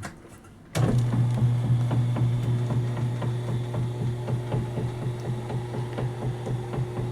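Electric lift motor in a sewing cabinet raising a Bernina sewing machine. It starts suddenly about a second in and runs with a steady hum and faint, evenly spaced ticking.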